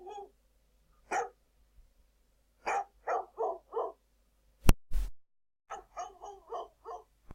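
Recorded Labrador barking: a run of short barks, several in quick succession, played back from a sound-effects file. A little past the middle comes a sharp click, the loudest moment, then a brief dead gap before the barking starts again.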